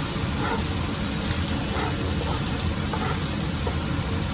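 Onions, garlic, hot pepper and pumpkin sizzling steadily in hot oil in a cooking pot, over a steady low rumble.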